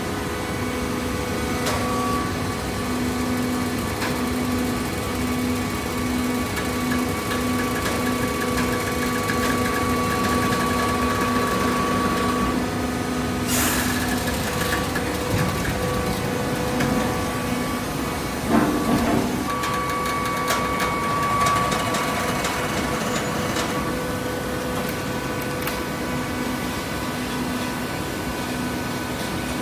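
Hydraulic baler running steadily, its motor and pump giving a level hum. A sharp crack comes about halfway through, and a brief clatter follows a few seconds later.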